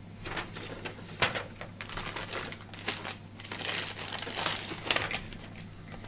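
Plastic accessory bags and a paper instruction manual crinkling as they are handled, in irregular crackles with a couple of sharper snaps.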